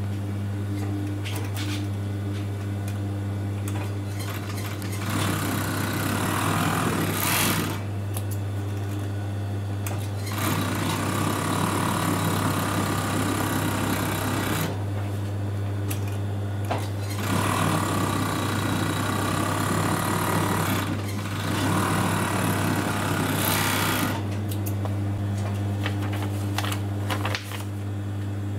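Juki MO-2300-series industrial serger (overlock machine) sewing along fabric edges in four runs of a few seconds each, with short pauses between runs. A steady low hum carries on under and between the runs.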